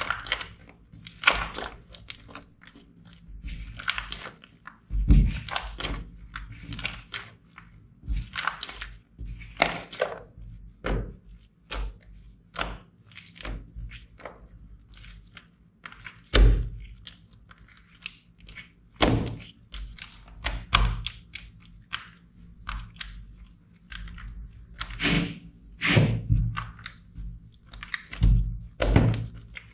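Slime being squeezed, poked and pressed by hand: irregular wet pops, clicks and squelches, about one or two a second, some landing as heavier thuds.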